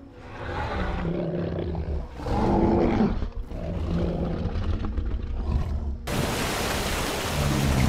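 Giant ape's film roar: rough growls and roars in several bursts, turning into a harsher, rasping roar about six seconds in.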